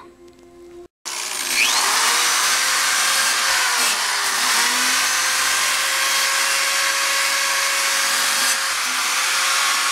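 Small corded electric rotary tool spinning an abrasive wheel against a steel motorcycle fuel tank, scouring off old paint and filler to leave a rough surface for primer. It starts about a second in and runs steadily, with a hissing grind over the motor's whine, which dips briefly about four seconds in as the wheel bears down.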